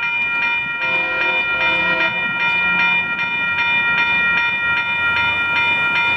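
Railroad grade-crossing warning bell ringing steadily, about two and a half strokes a second. A lower train horn chord sounds briefly about a second in.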